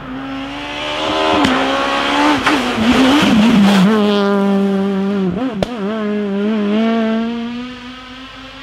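A rally car's engine at high revs going by on a special stage, its pitch falling as it passes, with gear changes and a couple of sharp cracks from the exhaust; it fades away near the end.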